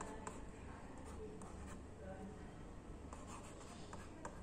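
Stylus scratching and tapping on the pressure-sensitive screen of a Portronics Ruffpad 8.5E LCD writing pad as capital letters are written. It comes in short, faint strokes with a few sharper clicks.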